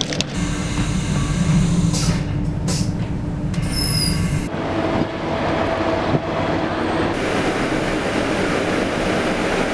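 Rumble of a passenger train heard from inside the carriage, with a brief high wheel squeal about four seconds in. The character of the rumble changes abruptly at about four and a half seconds.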